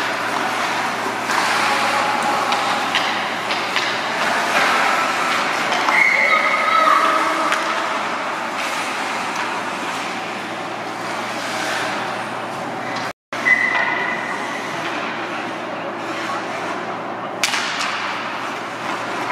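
Ice hockey game sound in a rink: a murmur of voices and brief shouts, with scattered knocks of sticks and puck over a steady hum. The sound cuts out for a moment about thirteen seconds in.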